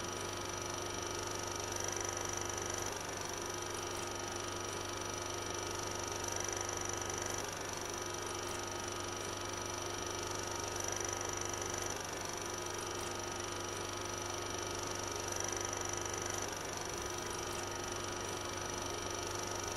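Thermoacoustic Stirling engine running: a steady hum with a held mid-pitched tone and a fainter high whine, swelling and easing slightly every few seconds.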